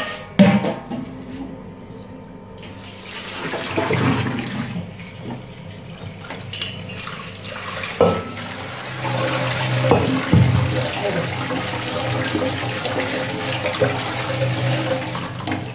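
Water pouring from a steel pot into a stainless steel colander in a steel sink, then a tap running over the sliced arvi (taro) in the colander to rinse off the salt and slime. Metal knocks of the pot and colander come near the start and around the middle.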